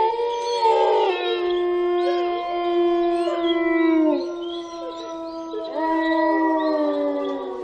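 Wolves howling, several long howls overlapping, each held at a steady pitch and sliding down at its end, with a fresh howl rising about six seconds in.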